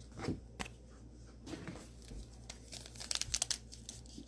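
A plastic trading-card pack wrapper crinkling and tearing as it is handled and opened. Scattered sharp crackles grow denser near the end.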